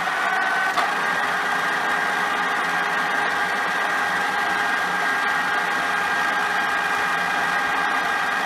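Dufour 221R milling machine running steadily under power, its motor and gear train giving an even whine made of several steady tones, with one click a little under a second in.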